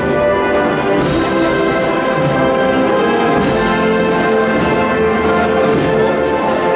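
A processional wind band with brass to the fore plays a Seville procession march in sustained chords. A high crash recurs about every two and a half seconds, about a second, three and a half seconds and six seconds in.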